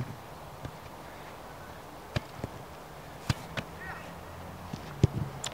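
A football being touched and kicked by a player's foot on artificial turf: about eight sharp, uneven thumps, the loudest one near the end.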